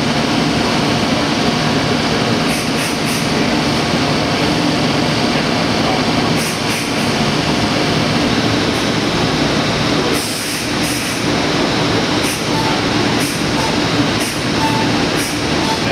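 Thermwood five-axis CNC router's spindle running and its cutter milling a laminated wood block: a loud, steady machine noise with a constant whine, broken by short high-pitched bursts every second or few as the cutter bites.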